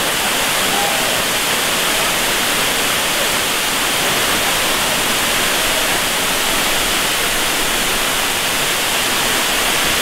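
Waterfall: the steady rushing hiss of water cascading down a rock face into a pool.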